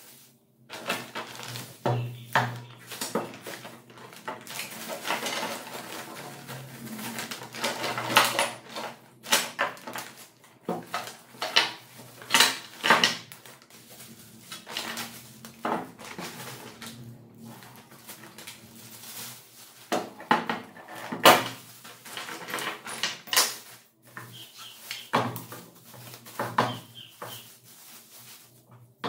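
Clear plastic packaging bag and bubble wrap crinkling and rustling as an angle grinder stand is unpacked. Irregular clinks and knocks come from its metal and plastic parts being set down on a wooden table.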